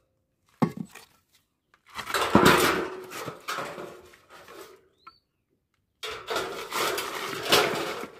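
Thin metal roofing sheets being handled and shifted over gravel: a short knock under a second in, then two stretches of scraping and rattling, each about two seconds long.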